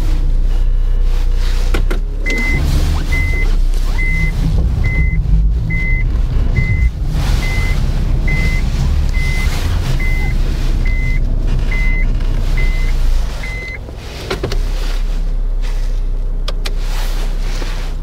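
Inside a moving Honda Mobilio Spike: steady road and engine rumble, with a few sharp knocks from behind the instrument panel. A car warning beep sounds about fourteen times, a bit more than once a second, starting about two seconds in and stopping about two thirds of the way through.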